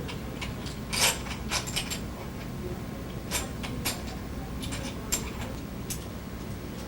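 Irregular metallic clicks and clacks of hardware being worked on an umbrella stroller's frame while a conversion kit is fitted, over a steady low hum. The loudest click comes about a second in.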